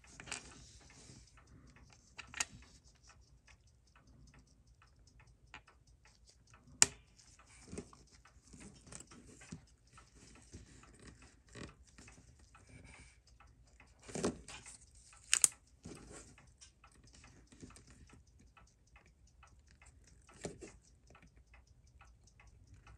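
Fast, steady ticking, like a clock or watch, runs throughout. Over it come a few sharp clicks and taps of steel tweezers and small parts on a watch movement and its metal holder, the loudest about seven and fifteen seconds in.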